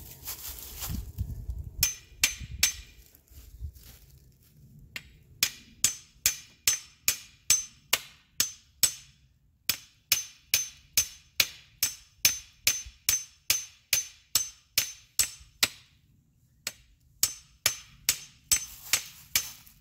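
Steady hammering: sharp strikes about two a second, each with a short metallic ring, in several runs broken by brief pauses.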